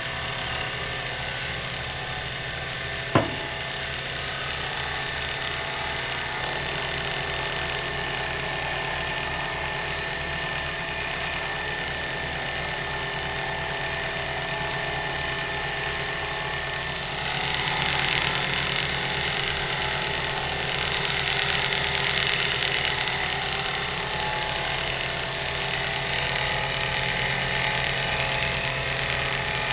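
Sherline CNC mill spindle running with a 5/16 end mill cutting an aluminium plate at a slow 10 mm/min feed. It makes a steady whine over a fast low pulsing. There is one sharp click about three seconds in, and the cutting gets louder a little past halfway.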